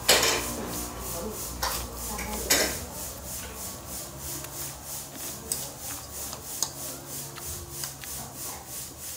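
Close-up eating of noodles with a metal fork off a plate: a few short, sharp slurping or scraping bursts in the first three seconds, then quieter chewing with small clicks over a low steady hum.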